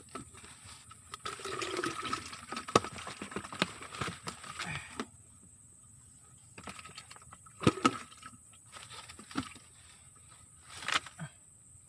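Water splashing and sloshing in irregular bursts with sharp knocks, pausing for about a second and a half midway.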